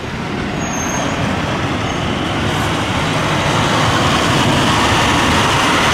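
Heavy dump truck approaching on the road, its diesel engine and tyre noise a steady rumble that grows louder throughout.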